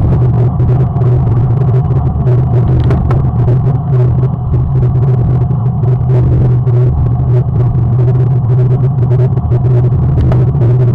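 Steady, loud low rumble of wind buffeting the microphone, with many brief clicks and crackles throughout.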